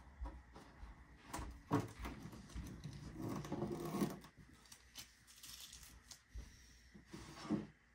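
Faint handling noise of the fiberglass hatch of a large RC model airplane fuselage being freed and lifted off: scattered clicks and taps, busier between about two and four seconds in.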